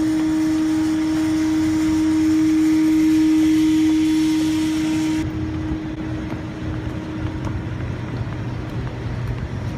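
Steady mechanical hum of outdoor machinery with a strong constant tone over a hiss. A little over five seconds in, the hiss and the tone drop away suddenly, leaving a quieter low rumble.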